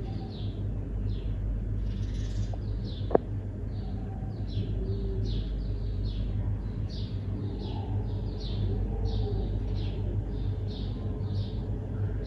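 A small bird chirping over and over, about two or three short chirps a second, over a steady low hum. A single sharp click comes about three seconds in.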